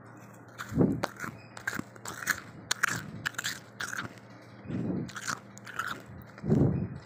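A person biting and chewing freezer frost: a quick run of crisp, crackly crunches starting just after half a second in, with a few deeper, heavier bites among them.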